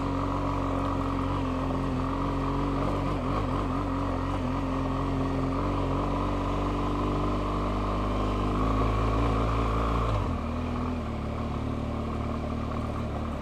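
BMW R1200GS flat-twin engine running steadily as the bike rides along. About ten seconds in the engine note drops lower and quieter.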